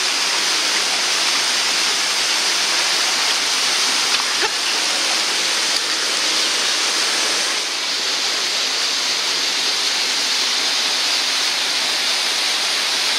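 Waterfall and mountain torrent rushing steadily into a rock pool.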